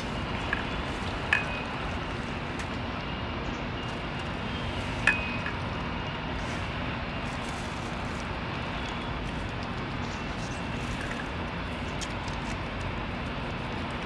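A cat eating wet food from a metal bowl: small chewing and licking clicks, with a few sharp clinks of the bowl ringing briefly, the loudest about a second and five seconds in, over a steady background rumble.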